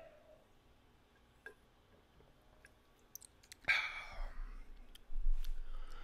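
A man's breathing and mouth noises after a drink: a few faint clicks, then two sharp breathy exhales, about three and a half and five seconds in, with low bumps between them.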